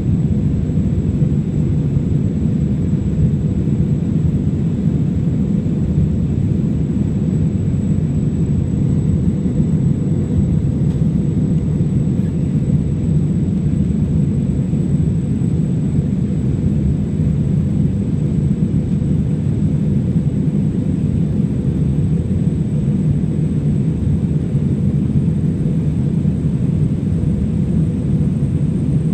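Steady low rumble of an AirAsia Airbus A320's jet engines and airflow, heard from inside the passenger cabin, with no change in level.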